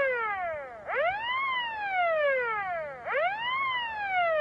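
Blast-site siren sounding the all clear after a controlled rock blast: a whooping wail that rises quickly and falls away slowly, repeating about every two seconds.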